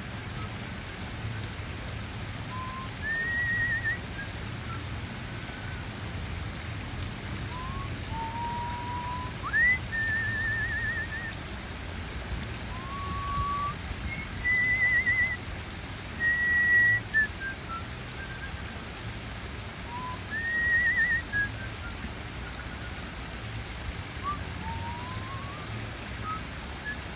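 A person whistling a slow, wandering tune in short phrases: held notes, some warbled, and upward slides between them. Under it, the steady hiss of water spilling over rock cascades into a pond.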